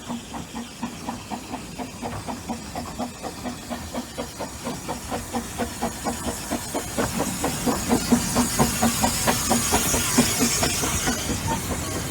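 Narrow-gauge steam locomotive working, with a regular beat of about four a second that grows steadily louder, and a loud hiss of steam in the later part.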